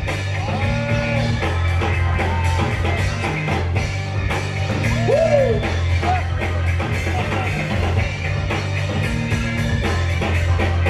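Loud music for a breakdance battle over a sound system: a track with a steady drum beat, a heavy bass line and a few sliding, swooping notes.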